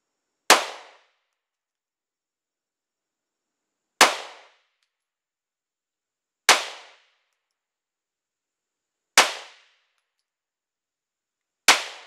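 Five single shots from a Polymer 80 Glock 19-pattern 9mm pistol, fired slowly and deliberately about two and a half to three and a half seconds apart. Each is a sharp report that dies away within about half a second.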